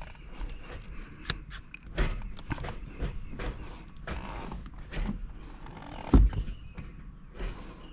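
Irregular clicks, knocks and rattles of hands working a shift knob onto a car's manual shift lever, with one sharp thump about six seconds in.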